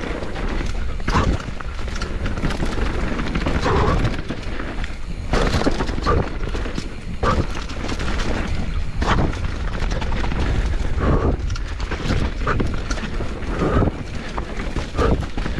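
Canyon Torque mountain bike descending a dirt forest trail at speed: a constant low wind rumble on the microphone, with the tyres on dirt and fallen leaves and frequent knocks and rattles from the bike over roots and bumps.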